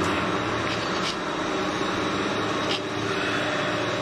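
Small open shaft lift hung on four steel cables, running as it climbs: a steady mechanical hum and rumble, with two faint clicks about one and three seconds in.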